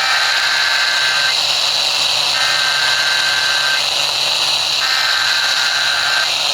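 EAS SAME header: three bursts of buzzy digital data tones, each about a second and a half long with a one-second gap between them, over steady radio static. The bursts mark the start of a new alert message.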